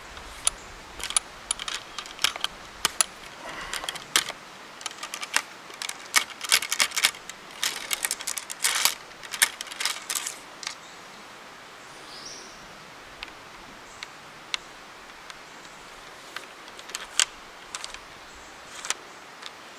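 Ramrod clicking and tapping against the muzzle and bore of a .50 caliber flintlock rifle as a patched ball is rammed down. A quick run of sharp clicks over about the first ten seconds, then a few scattered ticks.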